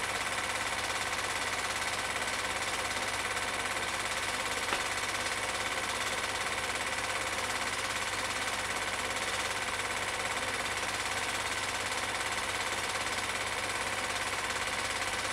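Film projector running: a steady mechanical whirr with a fast, even clatter from the film transport, and one small click just under five seconds in.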